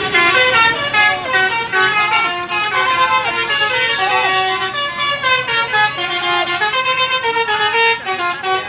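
Telolet basuri musical horn on a tour bus playing a tune: a quick run of changing notes, several tones at once, with no break.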